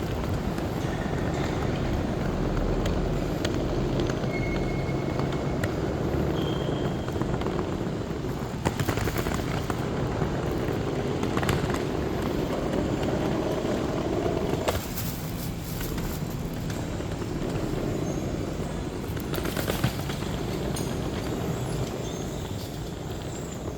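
Steady rumble of a passenger train running, heard from inside the coach, with a few sharp clicks and knocks scattered through it.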